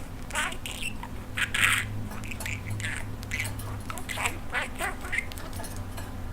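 Pet budgerigar chattering: a fast, irregular run of short chirps, squeaks and warbles, over a steady low hum.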